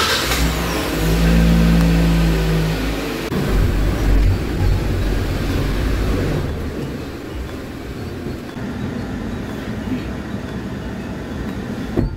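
Haval Jolion SUV's engine coming on suddenly and loudly, with a brief rise in pitch in the first few seconds, then running as the car pulls out of the garage. It grows quieter after about six seconds. A sharp click comes near the end.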